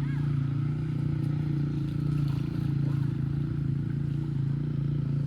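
An engine running steadily at an even speed: a low drone with a fast, even pulse.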